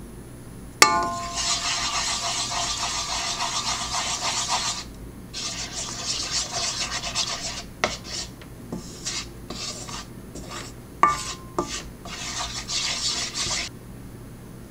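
Wooden spoon stirring and scraping rice flour into beaten egg in a mixing bowl: a continuous scrape for about four seconds, then shorter strokes. The spoon knocks the bowl about a second in and again near eleven seconds, and the bowl rings briefly each time.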